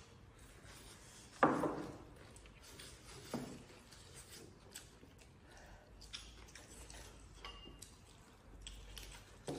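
Eating at a table: chopsticks clicking against ceramic rice bowls in small, scattered clinks, with a louder thud about a second and a half in and a softer one near the middle.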